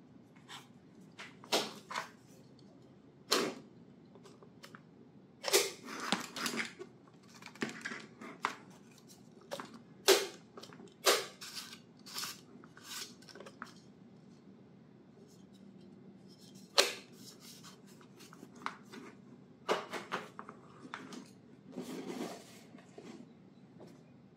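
Irregular clicks, snaps and short rustles of packaging being handled and opened around a new hair dryer, a mix of loud sharp strokes and softer scraping.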